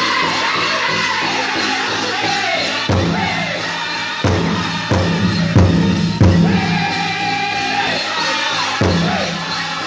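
Powwow drum group singing in high voices in unison around a large drum. Several loud, hard drum strikes fall between about three and nine seconds in.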